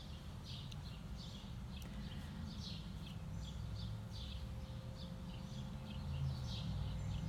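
A songbird chirping repeatedly, short high chirps about twice a second, over a low steady background rumble.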